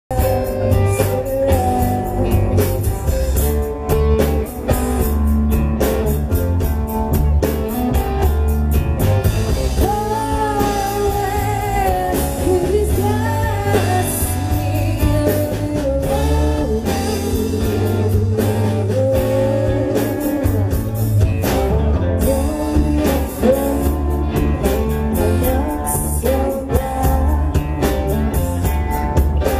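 Live blues-rock band playing, with electric guitars, bass guitar and drum kit, and a woman singing.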